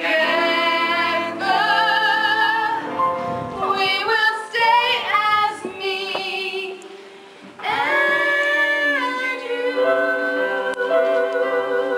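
Stage musical cast singing: female voices, more than one together, holding long notes with vibrato. The singing dips briefly about seven seconds in, then resumes with more held notes.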